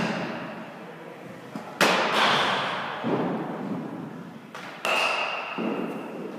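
Sharp pops of baseballs smacking into leather gloves, a few times. Each pop rings out with a long echo off the gymnasium walls.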